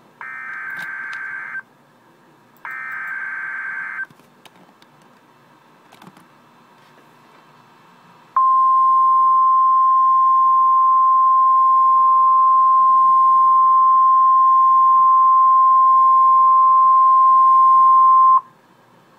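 Emergency Alert System signal for a severe thunderstorm warning. Two short raspy digital header data bursts open it, then after a pause a single loud, steady alert tone sounds for about ten seconds and cuts off abruptly.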